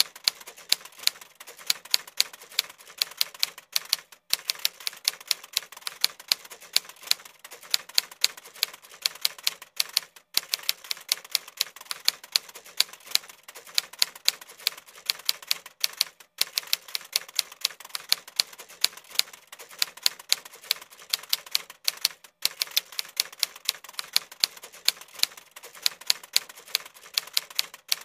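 Typing sound effect of rapid keystroke clicks, several a second, breaking off briefly about every six seconds.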